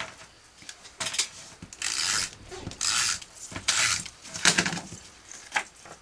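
Adhesive tape runner drawn across cardstock in about six short strokes, each a brief raspy swipe under half a second long.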